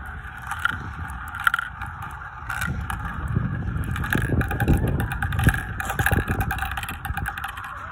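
Marbles rolling and circling around the plastic spiral funnels of a marble run: a continuous rattling rumble with many small clicks as they knock against the plastic and drop through. The rumble grows louder about three seconds in.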